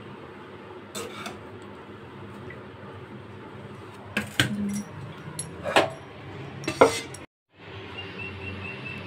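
Stainless-steel spoon, bowl and plates clinking and knocking as fried rice is served. There is a light clink about a second in, then a cluster of sharp clinks between about four and seven seconds, over a steady low hum.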